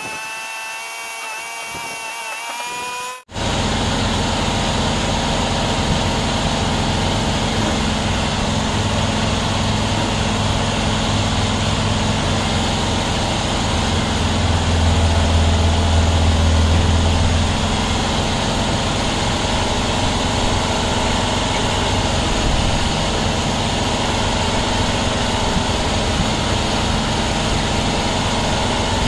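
1962 VW single-cab truck's engine idling steadily while it warms up, its low drone swelling for a few seconds about halfway through. Before a sudden cut about three seconds in, a pitched whine slowly rises.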